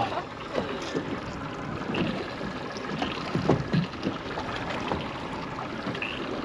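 Small waves lapping and slapping irregularly against the hull of a stopped fishing boat.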